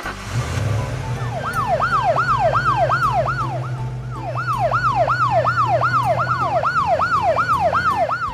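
Police siren in a fast yelp, rising and falling about three times a second, over a steady low engine hum. The siren starts about a second in and eases briefly midway.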